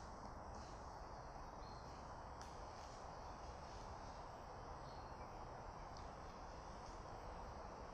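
Faint steady outdoor ambience: an even hiss with a few brief, faint high chirps scattered through it.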